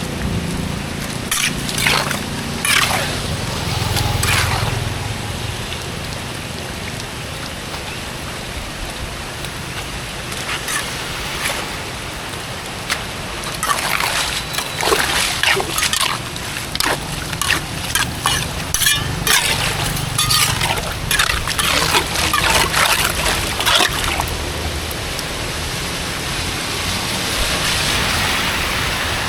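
Water splashing and sloshing at a blocked culvert being cleared: irregular splashes, a few early on and a busy run in the middle, then a steadier rush of water near the end.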